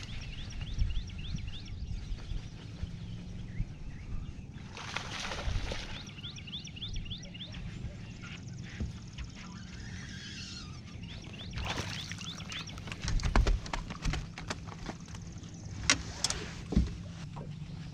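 A bass being caught from a bass boat: a splash on the water about five seconds in as the fish is fought, then a loud cluster of splashing and knocks on the boat deck around twelve to fourteen seconds as the fish is landed, with a few more knocks near the end. A low steady hum runs underneath, and birds chirp.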